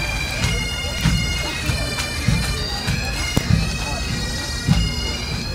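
Highland bagpipes playing a tune outdoors, steady drones under the chanter melody, with a regular low beat underneath.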